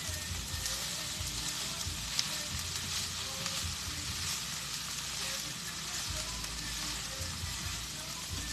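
Cauliflower rice, shrimp and vegetables sizzling steadily in a hot pan as they are stirred together, with one sharp tick of a utensil about two seconds in.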